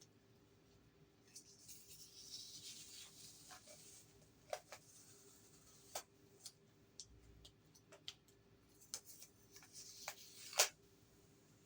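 Handling noise from unpacking coins: scattered clicks and taps with two spells of soft rustling, the sharpest click near the end.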